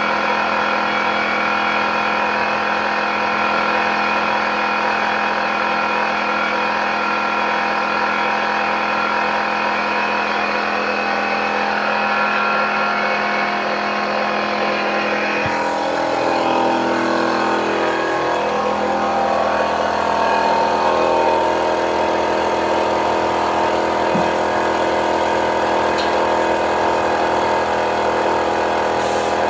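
Motor running steadily, most likely the air compressor that feeds a duco spray gun, with a humming stack of tones whose pitch shifts a little midway.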